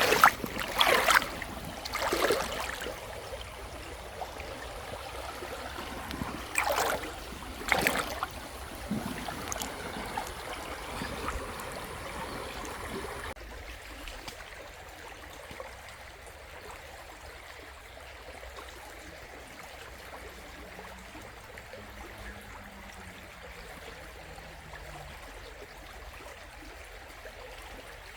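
Shallow river running over stones: a steady rushing with several loud gurgles and splashes in the first half. About halfway through it drops suddenly to a quieter, even flow.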